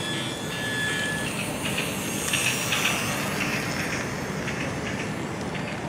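Steady outdoor background noise, with the thin high whine of a small battery-operated toy train motor for about the first second before it stops, followed by scattered short high clicks.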